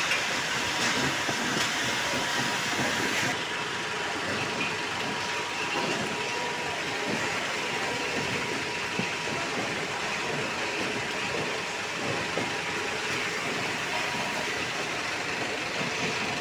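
Steady mechanical din of a whisky bottling plant's packing line, with a faint steady hum through it. The sound shifts abruptly about three seconds in.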